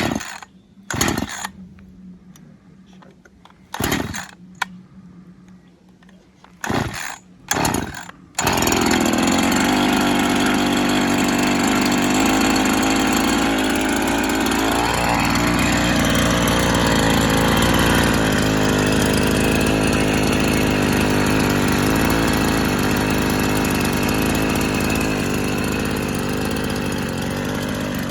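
Freshly rebuilt Husqvarna 353 two-stroke chainsaw on its first start-up: several short bursts of sound, then about eight seconds in the engine catches and runs continuously, its speed dipping briefly and recovering around the middle.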